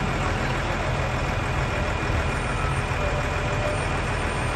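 A heavy vehicle's engine idling steadily with an even low hum, from the truck or forklift loading the machine.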